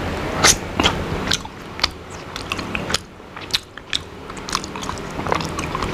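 Close-up mouth sounds of a person chewing a piece of smoked salmon dipped in sambal terasi: a dozen or so irregular sharp clicks and smacks.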